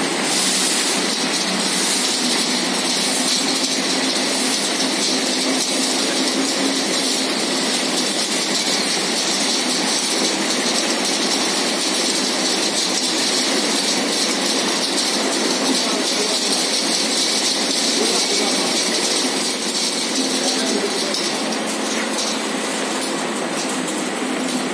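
Femaksan FEMAX2800 fertilizer packing machine and its feed conveyor running, with granular fertilizer being bagged: a steady, even hiss of machinery and running granules.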